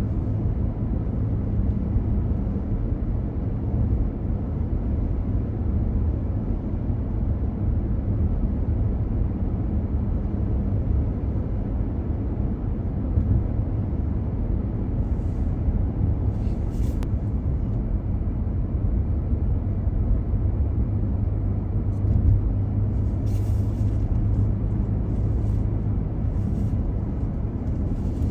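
Car driving on city streets: steady low engine and tyre rumble at an even level, with a faint hiss now and then.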